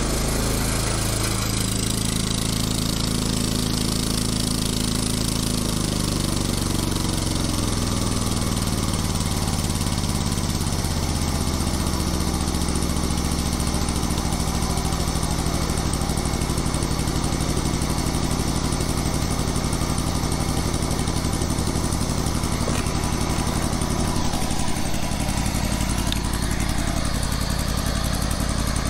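Toro Wheel Horse 267H ride-on mower engine running through its newly fitted exhaust system. Its pitch falls over the first ten seconds or so, then it holds a steady low note.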